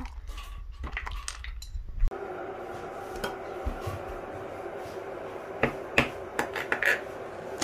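Macadamia nut shells being pried open with a knife on a wooden board: irregular sharp cracks and clicks as the shells pop, with knife and shell knocking against the board, the loudest crack about two seconds in.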